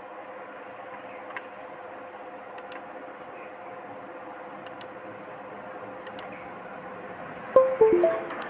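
Steady background hum, then about seven and a half seconds in, a quick run of short electronic tones stepping down in pitch: the computer's USB device chime as the phone's MediaTek preloader port connects.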